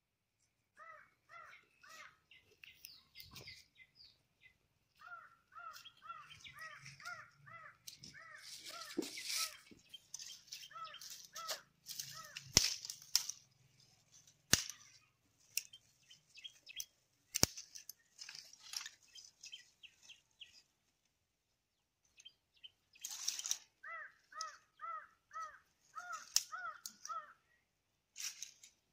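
Crows cawing in repeated runs of short harsh calls, about three a second. Dry branches rustle and a few sharp snaps of breaking dry sticks stand out midway as the loudest sounds.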